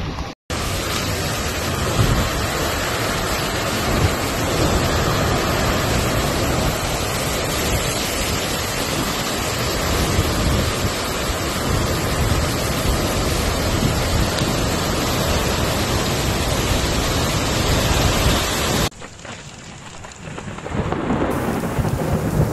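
Heavy typhoon downpour: rain pouring steadily, with low rumbling underneath. It drops away suddenly about nineteen seconds in, then builds again near the end.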